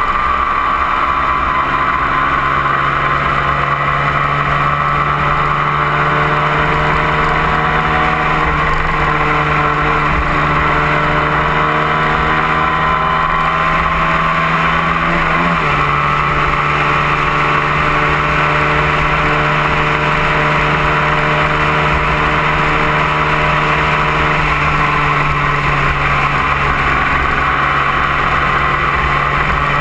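A 250 cc sport motorcycle's engine running at steady road speed, heard from a camera mounted on the bike, with a loud rush of wind over the microphone. About halfway through, the engine note changes briefly, then settles back to a steady pitch.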